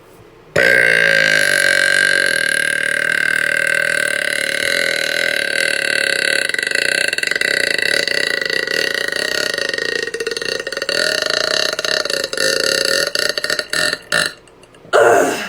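A woman's very long, loud belch, held for about thirteen seconds at a fairly steady pitch, then a short second belch near the end.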